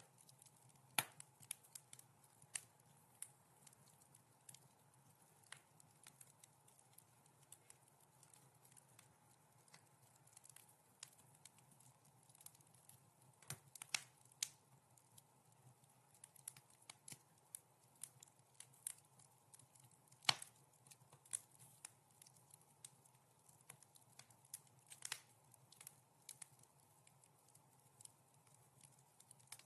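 Wood fire in a fireplace crackling: irregular sharp pops and snaps at random intervals, a few louder than the rest, over a faint steady hiss.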